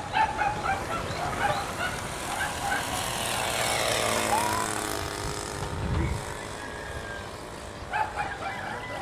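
A dog barking in quick runs of short, high yaps, at the start and again near the end, with a rush of noise that swells and fades in between.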